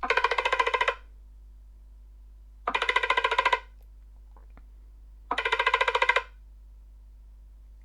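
Stock Nothing Phone 2a ringtone playing through the phone's speaker: a rattling, bell-like trill of rapid pulses, about a second long, repeated three times about every two and a half seconds, in the pattern of a ringing phone.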